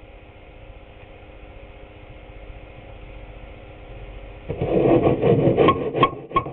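A steady low hum, then about four and a half seconds in a loud clatter that turns into a quick run of sharp blows, about three a second, each with a short ringing tone, like hammer strikes.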